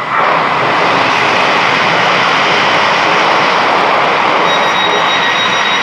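Loud steady rushing of a train that starts suddenly, with a steady high whine joining near the end.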